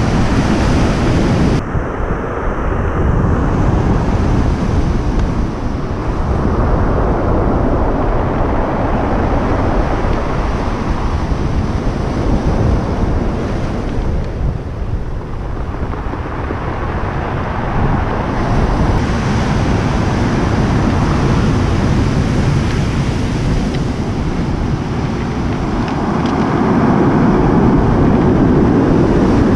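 Heavy surf breaking on a pebble beach, mixed with wind buffeting the microphone. The noise swells and eases every several seconds as waves come in.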